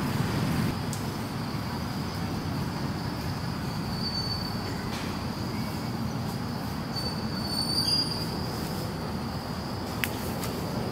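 Steady high-pitched drone of forest insects, swelling briefly about four seconds in and again near eight seconds, over a low steady rumble; a single sharp click near the end.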